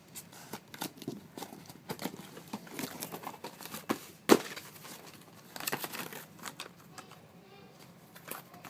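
Packaging being opened by hand: irregular crinkling and crackling with some tearing, and one sharp crack about four seconds in.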